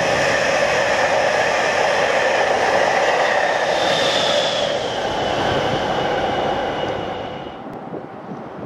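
NS Intercity train of coaches hauled by Traxx electric locomotives passing at speed: a steady rush of wheel and air noise, with a high whine coming in about four seconds in as the rear locomotive goes by. The sound dies away near the end.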